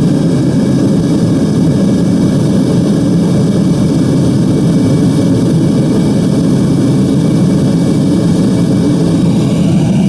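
Propane-fired Devil Forge melting furnace running, its burner giving a loud, steady rushing noise.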